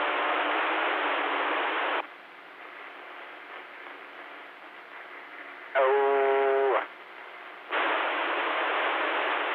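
CB radio receiver hiss between transmissions, a loud band-limited rush that cuts off abruptly about two seconds in and comes back shortly before the end. Around six seconds in, a steady one-second pitched sound comes through the radio.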